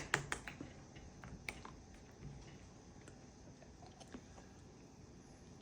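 Faint, scattered sticky clicks and taps of a blob of goo being pressed and flattened out by hand.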